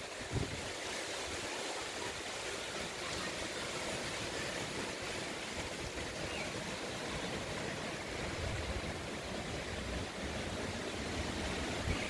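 Strong, gusty wind: a steady rushing hiss, with now and then a low rumble of wind buffeting the microphone.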